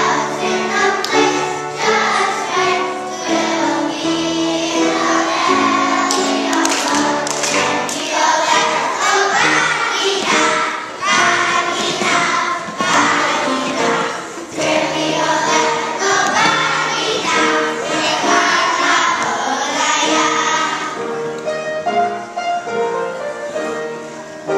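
A group of young children singing a song together in chorus, with music playing underneath.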